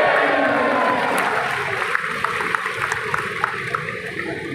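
Large crowd cheering and shouting, a dense roar of many voices taking over as a chanted slogan dies away in the first second.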